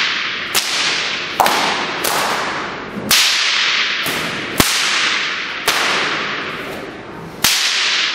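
Bullwhip cracking freestyle: about eight sharp cracks at an uneven pace, roughly one a second. Each crack is followed by a long echo fading away in the hall.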